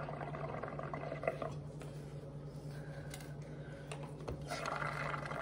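Air blown through a straw into a cup of soapy paint water, bubbling and fizzing as foam builds up, in two spells with the second, near the end, louder.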